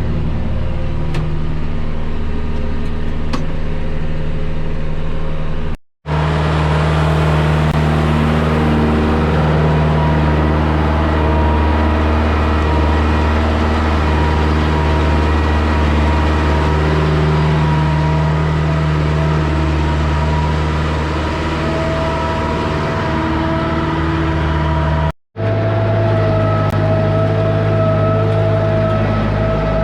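Tractor engine running steadily at high revs under load while driving a feed mixer's augers through the PTO to mix corn silage into the feed. The sound cuts out for an instant twice, about six seconds in and near the end.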